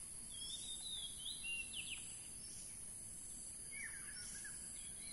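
Birds chirping: short, quick calls gliding up and down, a cluster in the first two seconds and another about four seconds in, over a steady high-pitched hiss.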